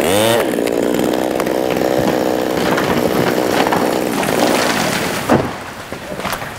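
Two-stroke chainsaw running at full throttle, cutting through brittle dead Douglas fir. Its pitch dips briefly at the start, then holds steady. About five seconds in the saw drops off, with a sharp crack.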